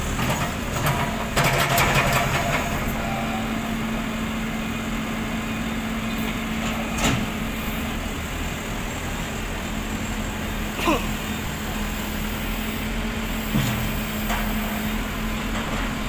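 Hyundai H940C backhoe loader's diesel engine running with a steady hum while the boom and bucket work. There is a burst of clattering about a second and a half in, a few sharp knocks later, and a short falling squeal about eleven seconds in.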